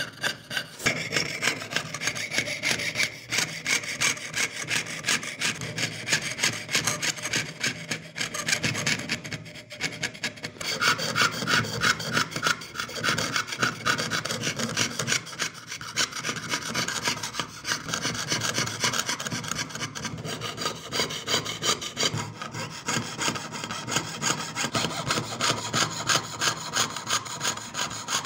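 Jeweler's saw blade cutting through thin sheet metal in quick, steady back-and-forth strokes, piercing out the background of an engraved design.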